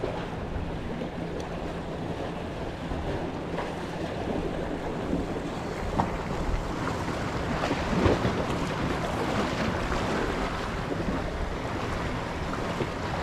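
Sea waves washing and splashing against concrete breakwater blocks, with wind buffeting the microphone.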